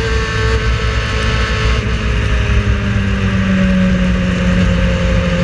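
Racing car engine running loudly and steadily, with a heavy low rumble and a slowly falling pitch.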